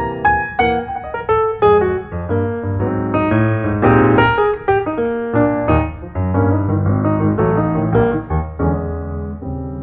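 Background piano music: a melody of separate struck notes over held low notes.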